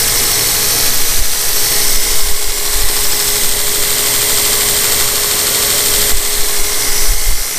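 2x72 belt grinder running steadily at speed: the belt's steady hiss with a constant motor whine underneath.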